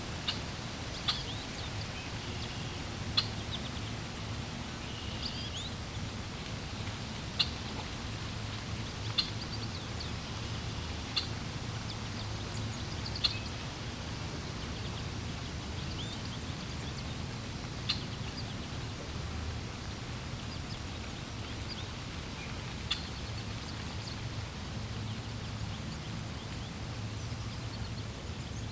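Birds chirping: short, sharp high chirps every couple of seconds, with fainter calls between. Underneath is a steady low rumble of flowing water.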